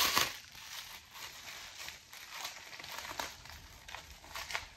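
Plastic packaging bag crinkling and rustling in irregular crackles as it is handled.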